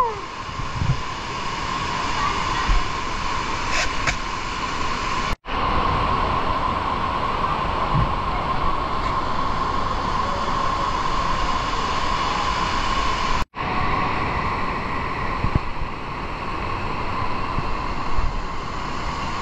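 Steady rushing noise of water echoing in a cave, with people wading and splashing through it. The sound drops out sharply twice.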